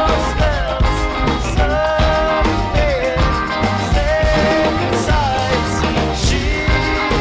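A live band playing a song: drums and bass keep a steady beat under a lead melody that slides between held notes.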